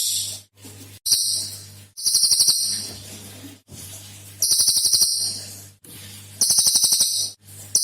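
A cililin songbird singing in repeated bursts of very rapid, high-pitched rattling notes, the 'tembakan' (shot) phrases prized in this bird. There are about five bursts, each under a second, with short pauses between them, over a faint steady low hum.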